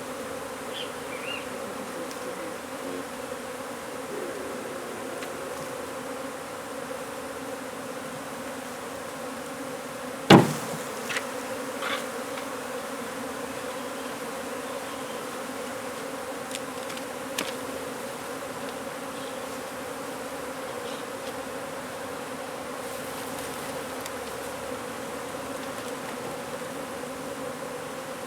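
A mass of honey bees buzzing steadily, a dense even hum, from a large colony opened up under a wood pile. About ten seconds in there is one sharp knock, followed by a few lighter clicks.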